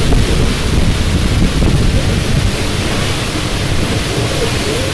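Strong storm wind buffeting the microphone, a steady heavy low rush.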